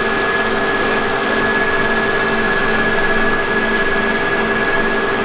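Flood drainage pumps running: a steady machine hum with a constant high whine over it.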